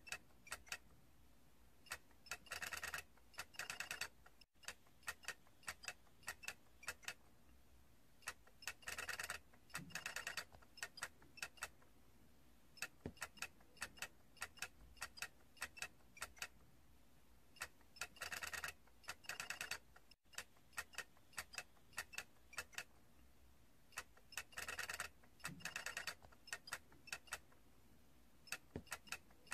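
Faint, light clicking: scattered single ticks, with four short runs of rapid clicking, each lasting about a second.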